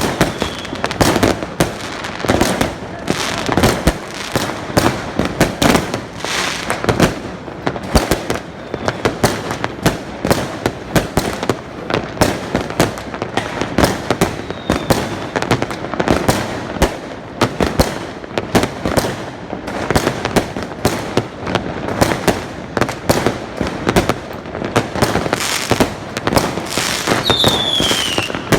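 Fireworks going off without pause, a dense run of overlapping bangs, pops and crackles. A short falling whistle comes near the end.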